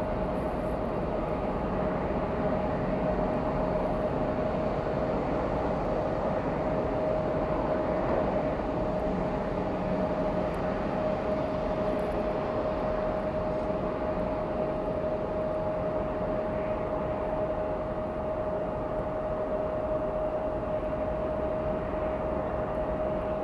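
Jet aircraft engines running steadily: an even rumble with a constant mid-pitched whine.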